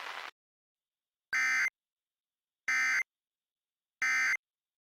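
Three short bursts of Emergency Alert System digital data tones, the end-of-message code sent after an alert. Each burst is a buzzy electronic screech under half a second long, about a second and a third apart.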